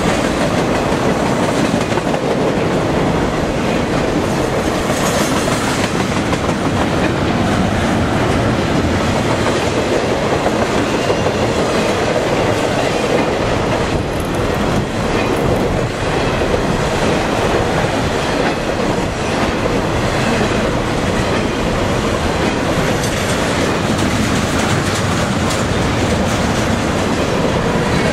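Freight train of trailer-carrying flatcars rolling past close by, with a loud, steady noise of steel wheels running on the rails.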